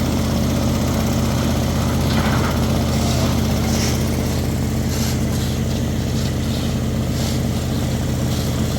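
Engine running steadily at one constant speed throughout, with a few short scraping sounds over it.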